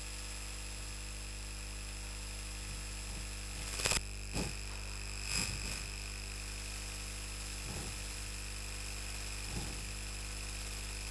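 Steady electrical mains hum with a faint high whine, broken by a handful of short scratchy strokes of a marker drawing lines on a whiteboard, the loudest about four seconds in.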